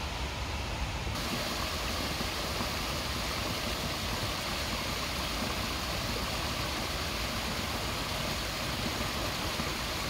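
Small tiered rock waterfall spilling into a pond: a steady rush and splash of falling water. About a second in the sound switches abruptly from a duller, more distant water sound to this brighter, fuller rush, with a steady low rumble underneath throughout.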